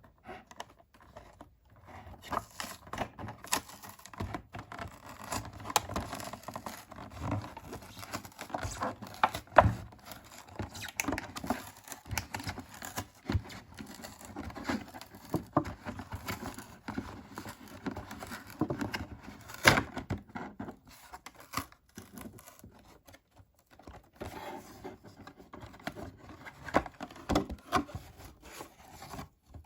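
Doll packaging being handled and opened by hand: crinkling, tearing and scraping, broken by many sharp clicks and taps.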